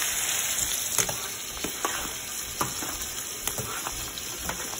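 Shrimp sautéing with garlic and shallot in a hot pan: a steady sizzle with a few sharp ticks and pops, easing a little toward the end.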